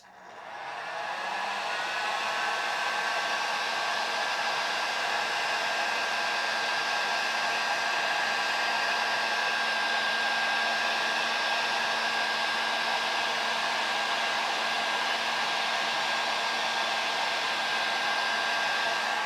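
Electric heat gun switched on and blowing steadily to shrink heat-shrink tubing over a soldered wire connection: its fan motor spins up over the first second or so, then runs with an even rush of air and a steady high whine before being switched off near the end.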